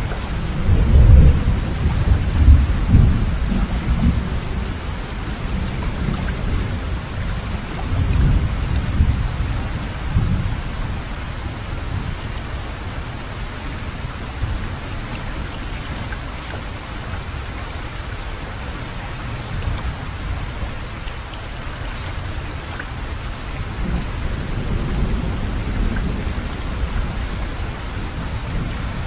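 Thunderstorm: rain falling steadily with deep rolling thunder. The thunder is loudest in the first few seconds, comes again about eight to ten seconds in, and rumbles once more near the end.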